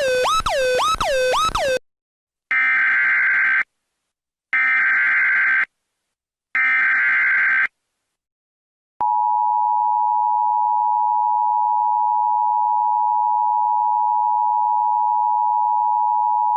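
Emergency Alert System tone sequence. The first two seconds are swooping electronic tones, dropping in pitch about three times a second. Then come three one-second bursts of the buzzy digital SAME header, a second apart, and then the two-tone attention signal held steady for about eight seconds.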